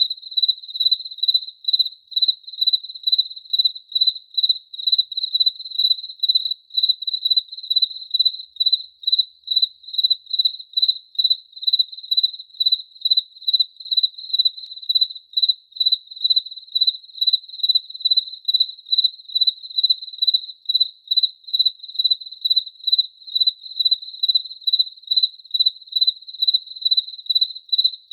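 A cricket chirping steadily: a pure high note repeated in an even rhythm of about two or three chirps a second.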